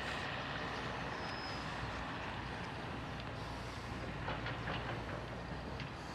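Diesel engine of a Hyundai 170W-7A wheeled excavator running steadily, with a few faint clanks about four to five seconds in.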